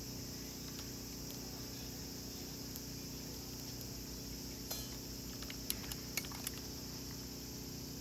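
Campfire crackling: a handful of sharp pops from about the middle to two-thirds of the way through, over a steady low hum.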